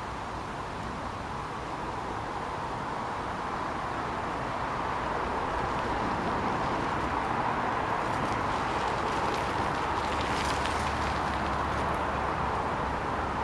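Steady outdoor background noise, a hiss-like rush that grows a little louder over the first few seconds, with faint light ticks and rustles in the second half.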